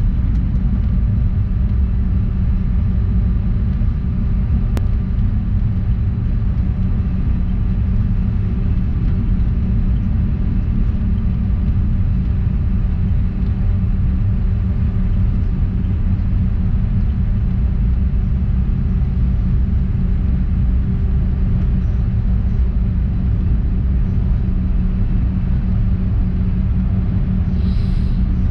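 Cabin noise of a Bombardier CRJ-200 regional jet taxiing: a steady low rumble from the rear-mounted turbofans at low taxi power and the cabin air, with a constant hum.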